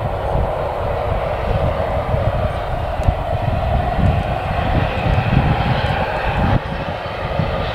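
Turboprop engines of a BAe Jetstream 41 running as it taxis: a steady engine drone over a gusty low rumble of wind on the microphone. The sound drops suddenly about six and a half seconds in.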